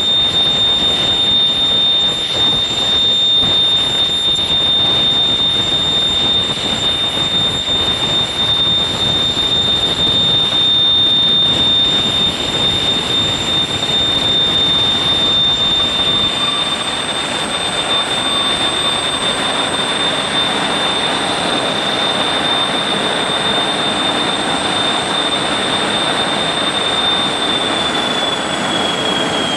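Fouga Magister's twin Turbomeca Marboré turbojets running at idle with a steady high whine over a roar. Near the end the whine starts to fall in pitch as the engines spool down at shutdown.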